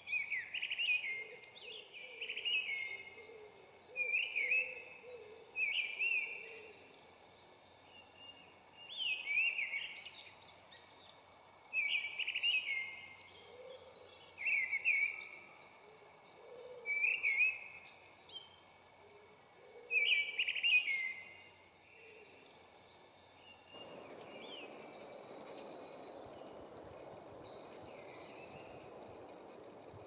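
Woodland birdsong: a songbird sings a short phrase over and over, about every two seconds, with a fainter, lower call underneath. About 24 seconds in, this gives way to a steady rush of stream water with high twittering above it.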